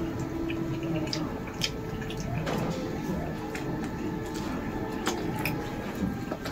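A person eating: chewing with small wet mouth clicks, scattered sharp ticks every so often over a low steady background hum.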